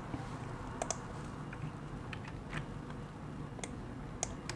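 Computer keyboard keys pressed in scattered, irregular clicks, about eight over a few seconds, over a low steady room hum.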